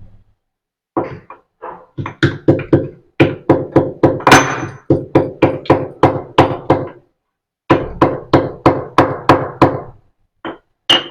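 Pestle pounding black cardamom in a mortar: a run of sharp blows at about three a second, each with a short ring, with a brief pause about two-thirds of the way through.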